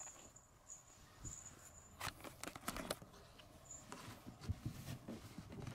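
Faint rustling and scratchy clicks of a hand groping along carpet against a wooden bed drawer, starting about two seconds in.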